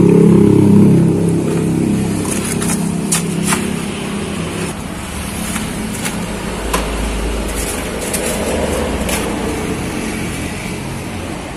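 Road traffic going by: a vehicle engine is loudest in the first couple of seconds, then fades to a steady traffic hum. Several sharp clicks and knocks of plastic cups and containers being handled sound over it.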